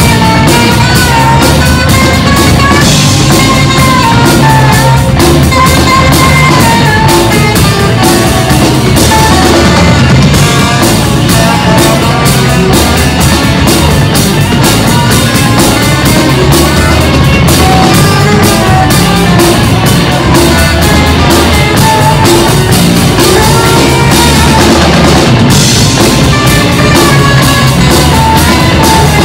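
Live instrumental rock band playing: saxophone and electric guitars over a drum kit, with a steady loud groove and wavering melodic lines.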